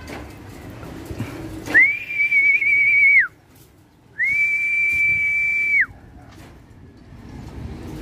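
Two long, steady, high whistles about a second apart, each sliding up at the start and dropping off at the end: a pigeon fancier whistling to call his racing pigeons down into the loft.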